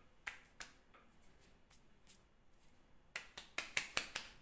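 Hands patting and rubbing together to shake powder into the air: a couple of soft slaps early, then a quick run of about seven sharp pats in the last second and a half.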